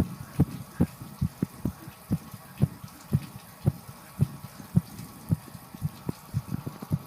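A person's heartbeat: fast, even low thuds, about two a second, over a faint steady hiss of shower water.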